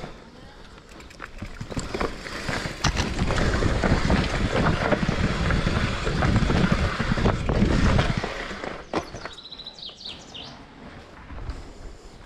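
Electric mountain bike rattling and rumbling down a rooty, stony dirt trail, with a dense run of small knocks, loudest from about two to eight seconds in. Then it eases off and a bird chirps a few times.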